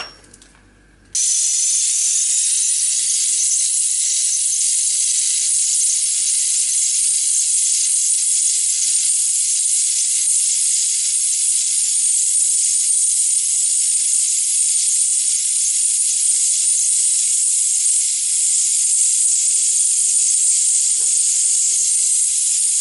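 A gas torch comes on suddenly about a second in, then burns with a loud, steady hiss as it heats a copper boiler for silver soldering.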